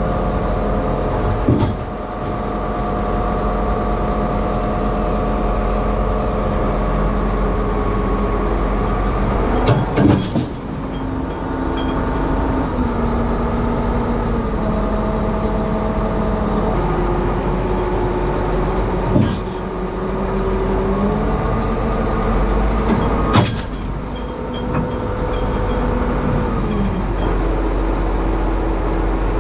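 Tractor engines running hard under load during a chain pull of a tractor stuck in mud; their tones step up and down in pitch several times. Sharp metallic bangs come four times, the loudest about 10 and 23 seconds in, typical of the tow chains jerking tight or snapping.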